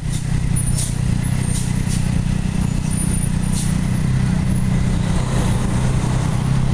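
Gridlocked road traffic: a steady low rumble of idling vehicle engines, with a few faint ticks.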